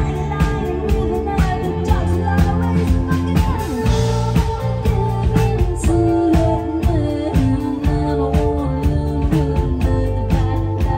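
Live rock band playing, with electric guitar, electric bass and a drum kit keeping a steady beat, recorded loud from the crowd.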